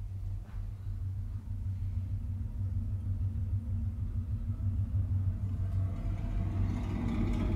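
Deep, steady low rumble from a film soundtrack played over speakers, with higher tones building up from about six seconds in.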